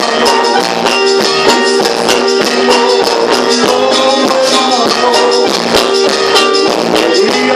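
Live dance band music with a steady beat, instrumental with no singing.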